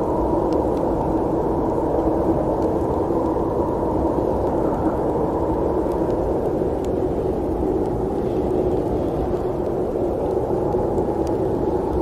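Steady low snowstorm wind with a faint held hum in it, and a few faint scattered ticks.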